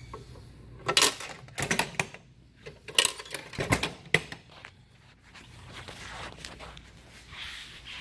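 Hinged metal side-compartment door of a pickup's utility body being swung shut and latched: a string of sharp metal clacks and knocks over the first four seconds, then quieter handling noise.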